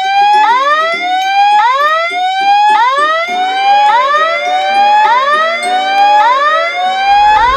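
Electronic level-crossing warning alarm sounding a rising whoop about once a second, with overlapping whoops out of step and a lower pulsing tone beneath. A train's low rumble comes in near the end.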